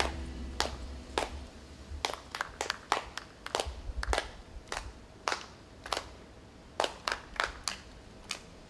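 Single hand claps, one at a time at irregular intervals, about twenty in all, over a faint low rumble that fades out in the first two seconds.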